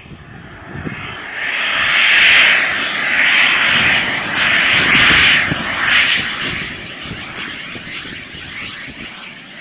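Radio-controlled model airplane's engine running at high power on its takeoff run, a loud rushing whine that surges several times, about a second apart, and then fades away over the last few seconds.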